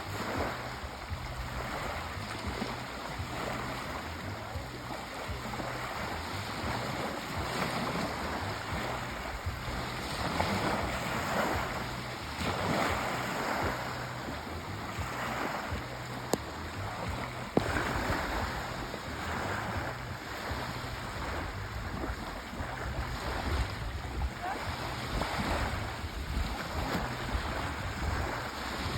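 Sea waves washing ashore: a steady surf noise that swells and falls every couple of seconds, with a short sharp tick a little past halfway.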